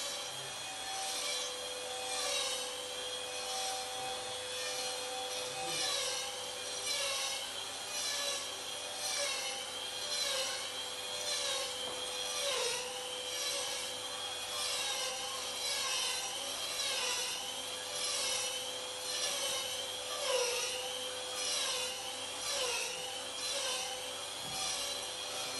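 Small electric rug trimmer running while it shaves the yarn pile of a tufted rug to a smooth finish. Its motor note dips and recovers about once a second as each pass drags through the yarn.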